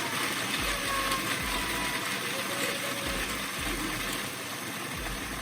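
Electric kitchen blender running at full speed, grinding almonds and seeds into a fine meal; a steady, loud whirring grind that cuts off near the end.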